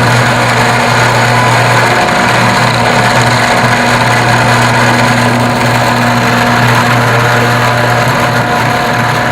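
Electric garage door opener running steadily, its motor humming as it moves the door on a test run after a travel adjustment.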